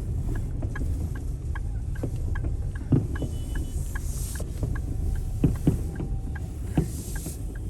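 Steady low rumble inside a car stuck in traffic, with scattered muffled pops and a few louder bangs from fireworks and firecrackers outside.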